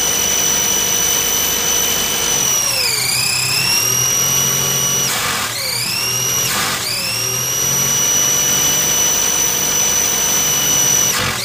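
Opel Rekord C's 1.9-litre four-cylinder engine running on a Weber 32/36 DGAV carburettor with a steady high-pitched whine. The throttle is opened by hand several times; each time there is a rush of intake hiss and the whine sags in pitch before recovering. This is an untuned carburettor that whines and wants to die on throttle.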